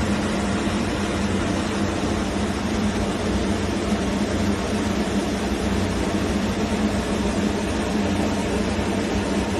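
A fan running at a constant speed: a steady rush of air over a low motor hum, with no change in speed.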